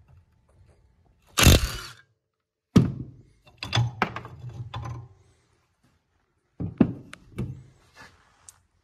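Metal knocks and clunks of tools and parts being handled on an ATV's rear axle assembly, with one short loud noisy burst about a second and a half in.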